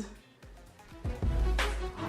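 Music with heavy, deep bass that starts about a second in, after a brief quiet moment.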